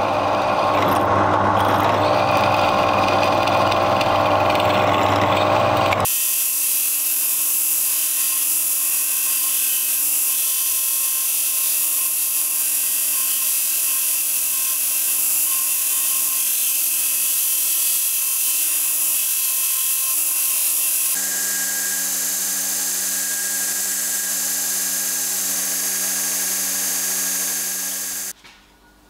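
A drill press boring through a thin aluminium plate for about six seconds. After that, a belt grinder runs with a small metal part held against its abrasive belt, a steady high hiss that changes in tone about two-thirds of the way through and cuts off suddenly near the end.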